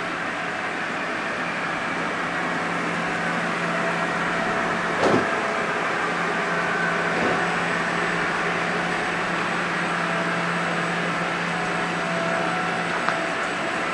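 Interior noise of a commuter train running: a steady rumble with a constant electric hum, and a single short clunk about five seconds in.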